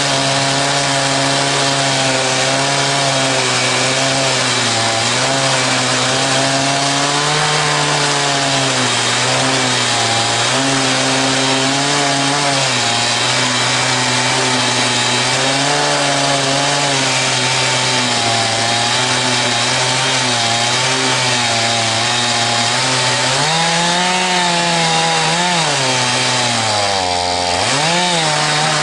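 Two-stroke chainsaw running at high revs under load in an Alaskan chainsaw mill, ripping a log lengthwise into 1-inch boards. The engine pitch wavers as the load changes, drops sharply near the end and climbs back up.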